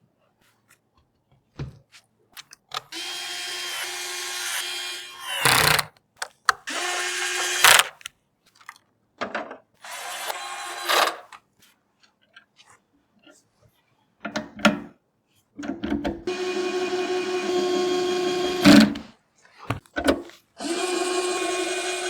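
Electric screwdriver driving screws: five short runs of a steady motor whir, the longest about three seconds, with clicks and taps of parts being handled between them.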